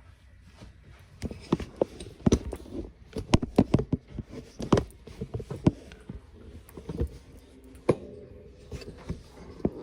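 Irregular knocks and clacks of kitchenware being handled, several sharp hits a second at times, with quieter gaps between.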